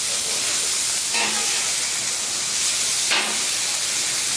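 Filet mignon steaks sizzling in oil on a hot steel flat-top griddle, a steady frying hiss. Two short scrapes of the metal spatula come about a second in and about three seconds in as the steaks are pushed around.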